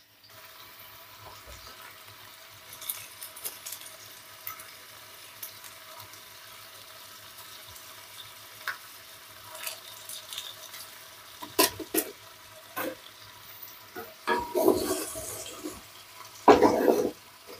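Chicken pieces frying in butter in a large metal pot, with a faint steady sizzle. From about halfway through, the masala-coated chicken is stirred, with several knocks and scrapes against the side of the pot.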